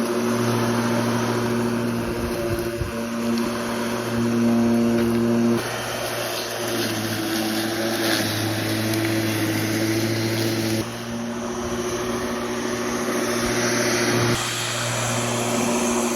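Lawn Master lawn mower running steadily while mowing, a loud, even hum; its pitch and level jump abruptly a few times.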